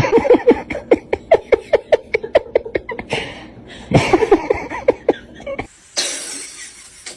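A rapid run of short, high-pitched vocal sounds, several a second, loudest at the start and again about four seconds in. It gives way to a steady hiss for the last second or so.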